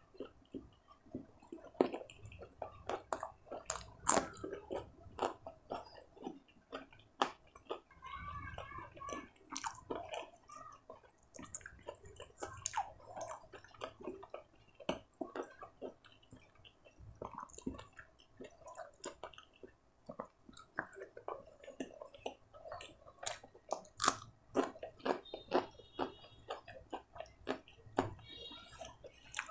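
A person chewing and smacking close to the microphone while eating paratha and curry by hand: many short, wet clicks at an irregular pace.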